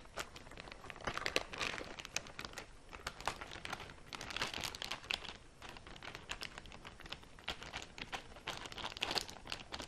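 Packaging of a fudge mix crinkling and crackling as the package is opened and the mix is emptied into a bowl, going on and off throughout.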